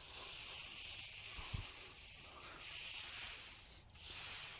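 Dry hay mulch rustling as it is pulled aside by hand, rising and falling with a short let-up near the end.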